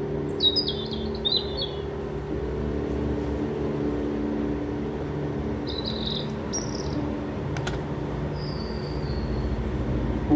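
Nature-footage soundtrack played back over a speaker: a sustained low music drone with bird chirps over it. There are quick trills about half a second in, another short burst around six seconds, and a slightly falling whistle near nine seconds.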